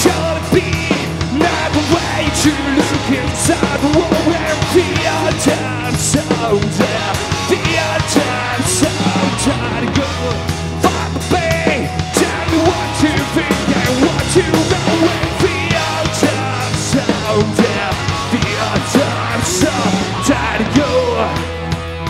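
Live rock band playing: electric guitar, bass guitar and drum kit with cymbal crashes, and a man singing over them.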